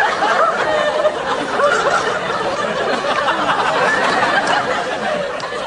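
Studio audience laughing: a sustained wave of laughter from many people, tailing off near the end.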